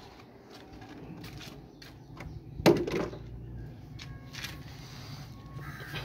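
Handling noises over a steady low hum: scattered light clicks and scuffs, and one sharp knock about two and a half seconds in, as a styrofoam food container is set down on the ground.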